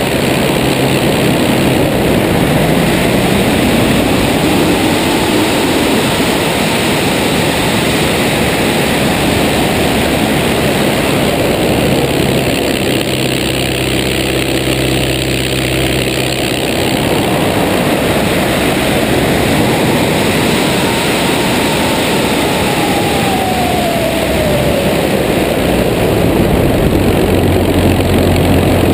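De Havilland Tiger Moth biplane in aerobatic flight: heavy airflow rushing over a wing-mounted camera with the engine and propeller running underneath, the engine note steadiest around the middle. A whistling tone falls in pitch about two-thirds of the way through.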